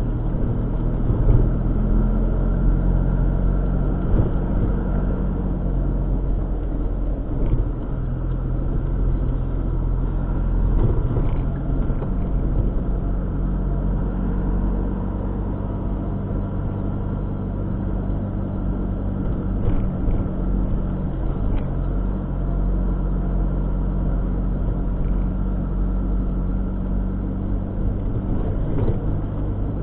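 A car driving along: steady low engine hum and road noise, with a few faint ticks now and then.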